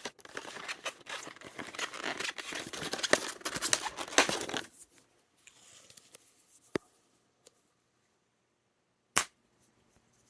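Plastic packaging crinkling and tearing for about four and a half seconds as a solder sucker is unwrapped, then a small click and, near the end, one sharp snap from the desoldering pump's strong spring-loaded plunger being released.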